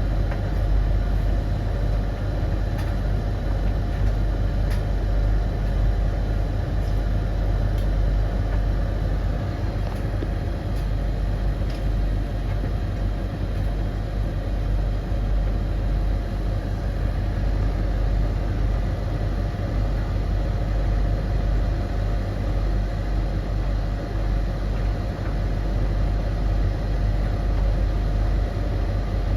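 Three domestic tumble dryers running together mid-cycle: a steady low drum-and-fan hum with a faint even tone over it and light scattered ticks.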